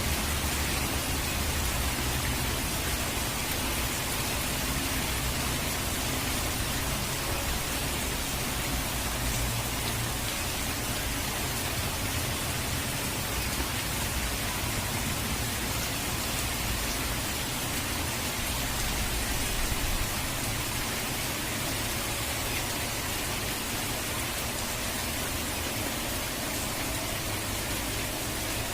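Steady waterfall-and-rain ambience: an even hiss of falling water with a low rumble underneath.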